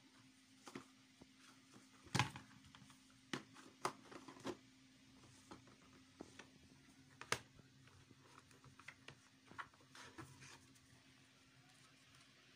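Small clear plastic storage drawers and a plastic box being handled: scattered sharp clicks and knocks, the loudest about two seconds in, over a faint steady hum.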